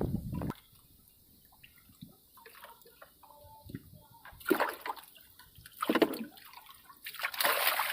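Water splashing in short surges, about halfway, a second later and near the end, with faint drips in the quiet stretch between.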